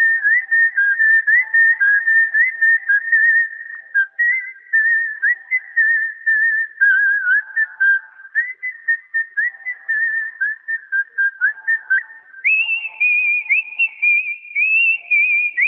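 A person whistling a tune: one clear tone wandering in short notes with quick upward slides and little warbles, jumping to a higher pitch about twelve seconds in.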